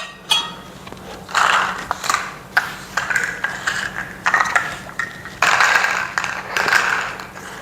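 Steel greenhouse frame tubes being handled and pushed into their connector fittings: a run of irregular scraping and clicking noises, some with a faint metallic ring.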